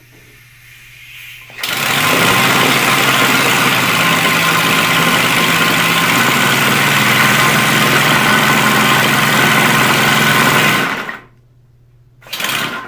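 Homemade three-cylinder compressed-air engine with slider valves, running fast on shop air. A loud rushing hiss of exhausting air with a rapid pulsing starts after a faint hiss and cuts off suddenly near the end, followed by one brief burst of air.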